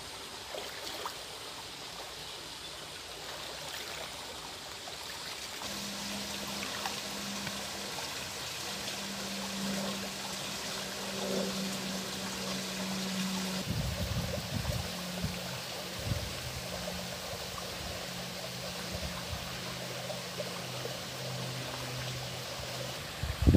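Shallow forest stream running and trickling over rocks, a steady even rush of water. A faint low steady hum sits underneath from about six seconds in.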